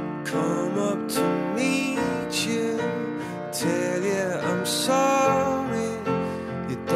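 Background music: a song with acoustic guitar and a melody line that glides up and down in pitch.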